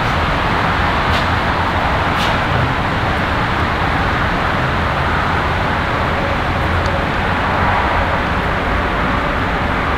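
Diesel locomotive running steadily, its engine noise holding an even level.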